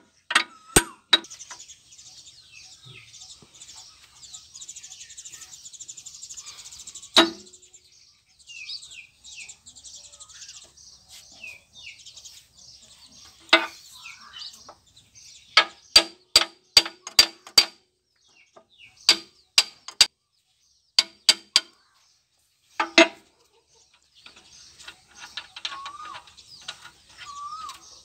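Sharp metal taps and clinks from a hand tool striking steel gears and the cast-iron transmission housing of a tractor during crown wheel and pinion work: single knocks at first, then a quick run of about five taps and further short clusters. Birds chirp faintly throughout.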